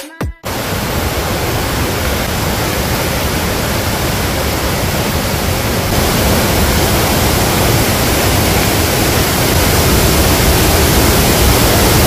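A stream and waterfall in flood: muddy floodwater rushing over rocks and the Matai Falls in spate, a loud steady roar of water that grows a little louder about halfway through.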